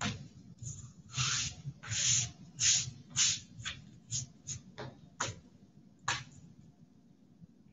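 Paper towel rubbed and dabbed over a raw, skin-on slab of bacon on a cutting board, drying it after a salt-water wash. It is a run of about a dozen short rustling swishes, the loudest in the first three and a half seconds, stopping about six seconds in.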